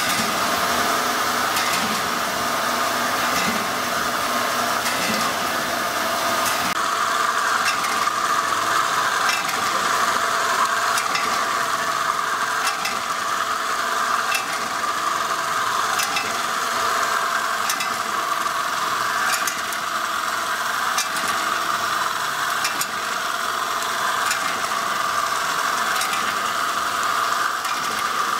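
Candy packaging machine running: a steady mechanical hum with mint candies rattling in its feeder bowl, and light clicks repeating at an even pace from the machine's cycle.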